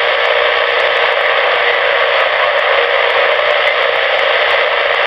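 Cobra 29XLR CB radio's speaker hissing with steady, loud static on an open channel, no voice coming through.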